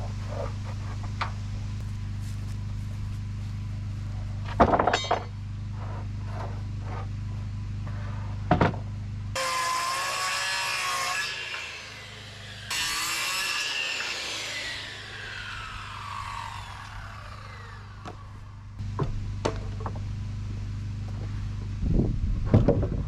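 Power saw cutting wood siding boards: two loud cuts about nine seconds in, the blade whine falling in pitch as it spins down after the second. Before and after, a steady low hum with a few sharp knocks.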